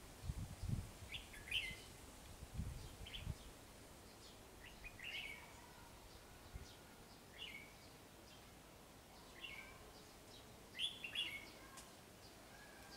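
Red-whiskered bulbuls calling: short chirping phrases every one to two seconds. Low bumps in the first few seconds.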